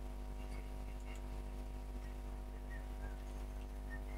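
Steady low mechanical hum at a constant pitch, with a few faint short chirps above it.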